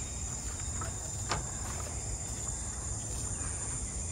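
Steady high-pitched drone of insects calling in the surrounding vegetation, with a low rumble underneath and one sharp tap about a second in.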